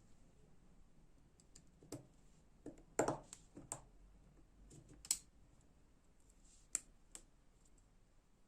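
Scattered light clicks and taps of small metal knife parts and tools being handled. A cluster of louder clicks comes about three seconds in, and single sharp clicks come about two seconds and four seconds later.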